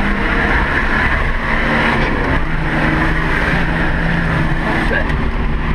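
Off-road 4x4's engine running under load at fairly steady revs, heard from inside the cab.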